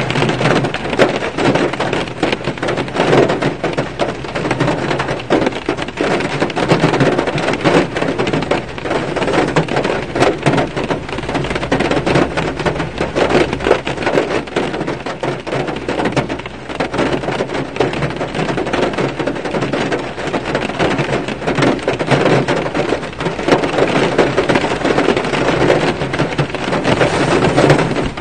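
Rain falling on a car's roof and windshield, heard from inside the car: a dense, steady patter of drops.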